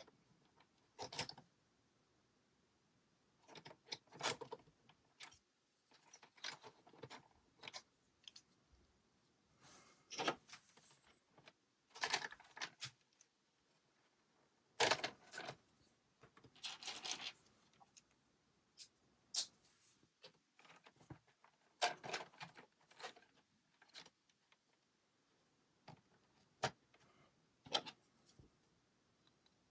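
Plastic LEGO bricks being handled and pressed together: irregular clicks and small rattles, with a few short rustling clusters between quiet gaps.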